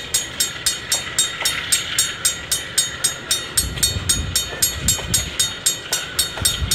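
Level crossing alarm bell ringing rapidly, about five strokes a second, as a long freight train of container wagons rolls past. The low rumble of the wagons' wheels grows louder about halfway through.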